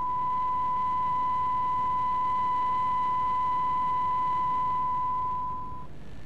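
Steady 1 kHz line-up test tone, broadcast with a TV station's test card, over a hiss; it cuts off suddenly near the end, leaving only the hiss.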